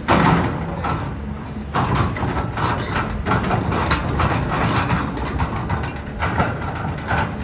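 Demolition machinery at work: a heavy diesel engine running steadily under crunching and crashing of building material, with the loudest crunches right at the start and about two seconds in.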